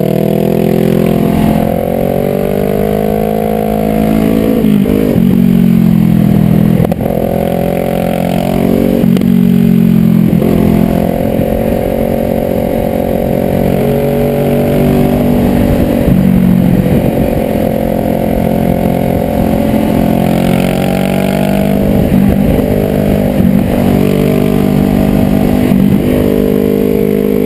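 Sport motorcycle engine heard from the rider's helmet, pulling hard through the gears and backing off for corners, its pitch rising and dropping again and again, over a steady wind rush.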